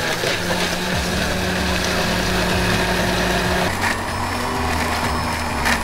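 Countertop blender motor running steadily while blending a mango shake; its pitch steps slightly higher a little over halfway through.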